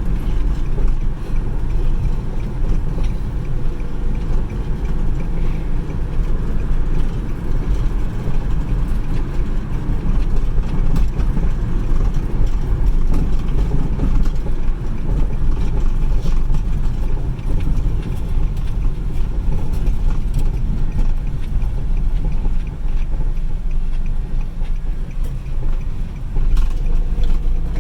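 Steady low rumble of a moving vehicle's engine and tyre noise on the road.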